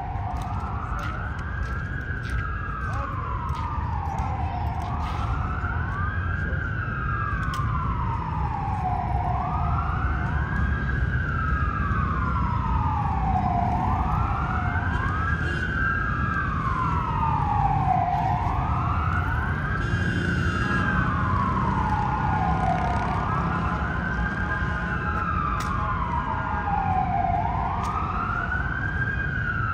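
Emergency vehicle siren in a slow wail, each cycle rising quickly and falling more slowly, repeating about every three seconds. Under it runs a steady low rumble of city traffic.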